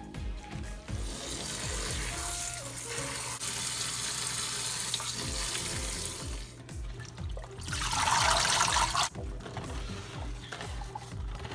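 Tap water running into a stainless-steel sink as napa cabbage is rinsed in a plastic colander, running hardest for about a second around eight seconds in. Background music with a steady beat underneath.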